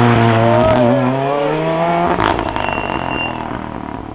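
Renault Clio rally car's engine pulling hard as it drives off, its pitch climbing and dipping through a gear change. A sharp crack comes about two seconds in, then the engine fades as the car moves away.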